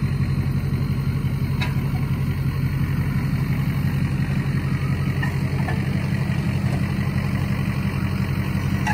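Ford pickup truck's engine idling steadily, creeping in reverse as it backs a boat trailer down toward the water.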